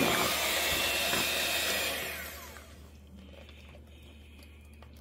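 Electric hand mixer running at high speed, its beaters churning thick sweet potato pie filling in a plastic bowl, then switched off about two seconds in, the motor noise dying away to a faint hum.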